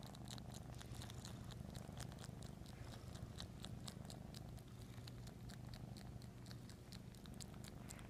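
Domestic cat purring steadily close to the microphone, with quick wet clicks of its tongue licking, about four a second.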